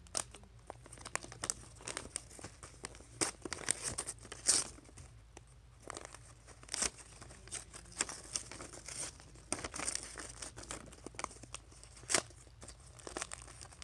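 Wrapping paper being torn and crumpled by hand as a present is unwrapped: irregular crinkling and ripping, with the sharpest rips about four and a half, seven and twelve seconds in.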